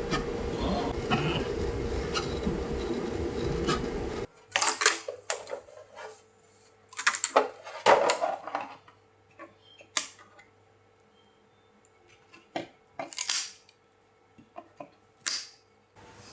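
A 3D printer running with a steady hum for about the first four seconds, then stopping abruptly. After that come scattered clicks, knocks and clatter of a hard plastic printed part being handled.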